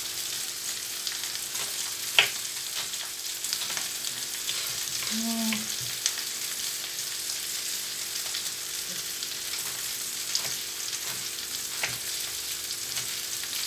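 Battered hake fillets frying in oil in a frying pan, a steady sizzle, with a few sharp knife taps on a wooden cutting board as an onion is sliced.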